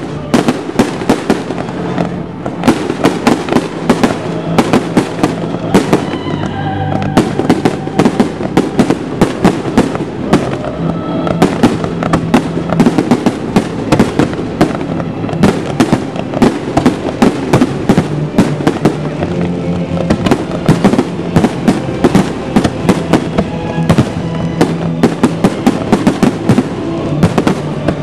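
Fireworks display: rapid, dense bangs of exploding shells, several a second, with a brief thinning about six seconds in, over music played with the show.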